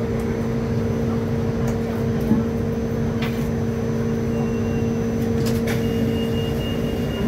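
Steady electrical hum and rumble inside a Hong Kong Light Rail Phase III car, with a few light clicks. The hum cuts off suddenly at the very end.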